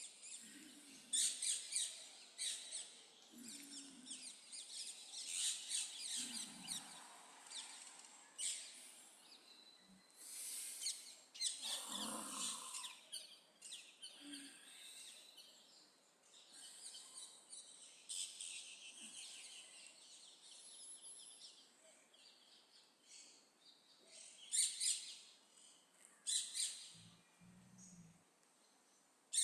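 Birds chirping and calling: many short high calls come in clusters, with brief pauses between them.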